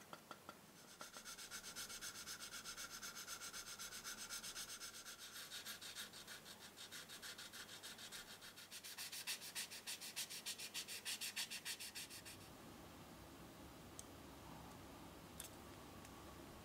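Sanding pad rubbed over the filled seam on the nose of a small plastic scale-model helicopter: rapid, even back-and-forth sanding strokes smoothing the filler. The strokes stop about three-quarters of the way through, leaving a couple of faint clicks.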